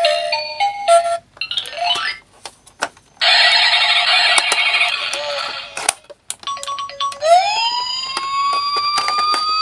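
A short electronic chime melody and a quick rising sweep, then a harsh buzz lasting a couple of seconds. About seven seconds in, an emergency siren starts and winds up in a slow rising wail.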